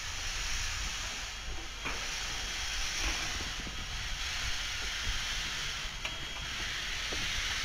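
Steady hiss of steam blowing from the open cylinder cocks of Strasburg Rail Road's 2-6-0 steam locomotive No. 89 as it moves slowly.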